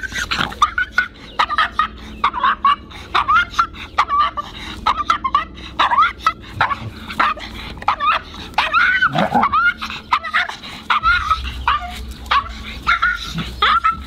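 Small Maltese bichon barking non-stop in rapid, high-pitched yaps, two or three a second, with a longer yelp a little past the middle: the anxious, reactive barking of a small dog confronting a much larger one.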